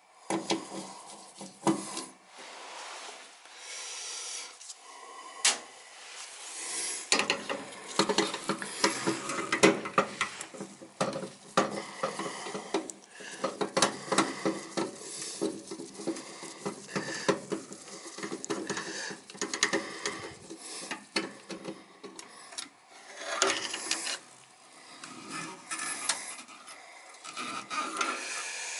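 Hand work on a gas furnace's burner assembly while removing its igniter: irregular scraping, rubbing and clicking of tools and metal parts as the igniter is worked loose.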